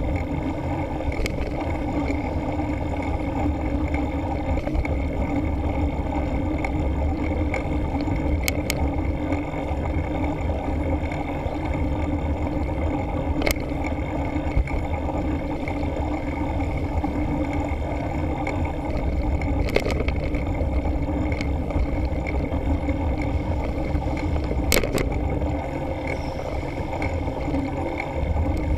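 Wind rushing over a bike-mounted action camera's microphone along with mountain bike tyres rumbling on tarmac, a steady noise broken by a few sharp clicks.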